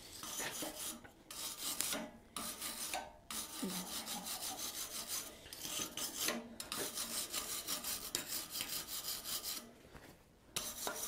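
Wire brush scrubbing a hot twisted metal bar clamped in a vise, rapid scratchy back-and-forth strokes that clean forge scale off the surface. The scrubbing pauses briefly several times and stops near the end.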